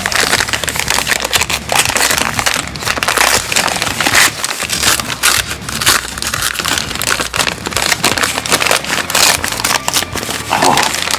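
Wrapping paper being torn off a present and crumpled, a continuous, irregular run of loud crinkling and ripping.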